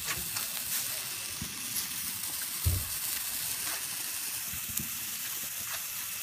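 Ground fountain firework spraying sparks: a steady hiss with scattered crackles and a low pop about two and a half seconds in.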